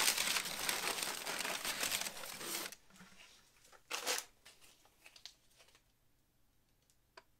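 Brown kraft packing paper rustling and crumpling as a hand pushes through it in a cardboard shipping box, for about two and a half seconds. A shorter rustle comes about four seconds in, then only a few faint clicks.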